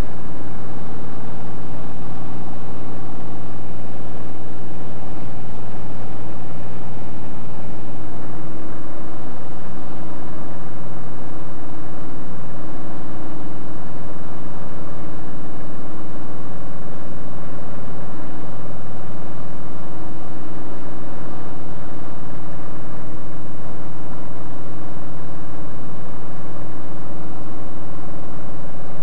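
Light aircraft's piston engine and propeller droning steadily in flight, heard from inside the cabin.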